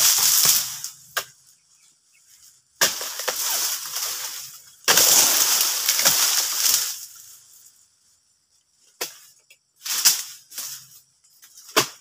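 Oil palm fronds rustling and crashing as they are cut with a long harvesting pole and pulled down, in several long noisy bursts over the first seven seconds and shorter ones after.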